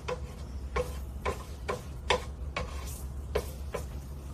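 Metal cutlery clinking against a plate, about two light taps a second, each with a short ring, over a steady low hum.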